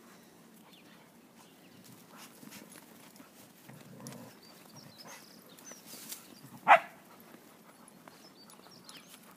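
A spaniel gives one short, loud bark about two-thirds of the way through, over faint scuffling of paws in snow.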